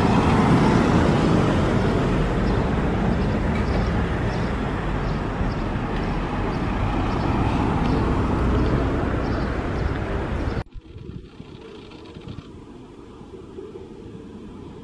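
A car driving past close by, its engine and tyre noise loudest at first and slowly easing off. About two-thirds of the way through it cuts off abruptly, leaving a much quieter steady background.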